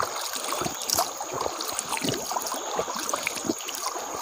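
Shallow, pebbly forest stream trickling, with hands scooping and splashing in the water in many small splashes.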